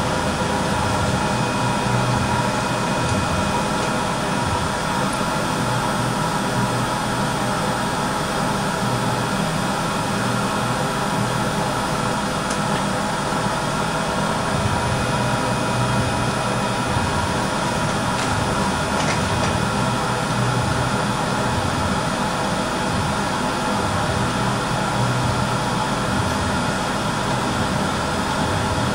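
Steady mechanical drone with a constant hum, unchanging throughout.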